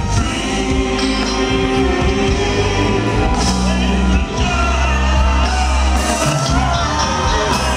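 Live soul/R&B band playing with a male lead vocal and backing singers, with steady bass and sung lines gliding up and down.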